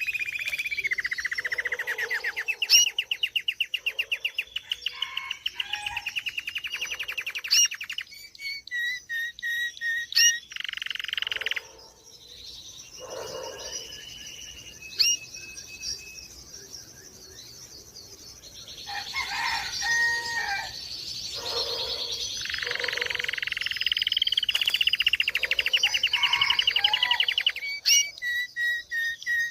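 A domestic canary singing: long, fast rolling trills broken by short chirps and brief pauses, with a quieter stretch about halfway through.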